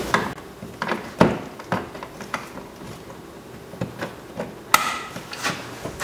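Scattered sharp plastic clicks and knocks, about ten of them at irregular intervals, the loudest a little over a second in and near five seconds: a car door's interior trim panel and its window-switch wiring being handled and fitted.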